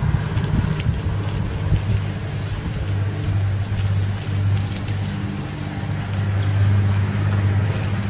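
Small campfire of wood embers crackling with scattered small snaps, over a steady low hum.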